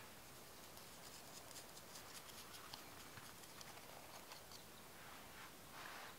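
Brown sugar and cinnamon filling poured from a glass bowl onto buttered dough, falling in a faint patter of small ticks. Near the end, soft swishes of hands beginning to spread the sugar over the dough.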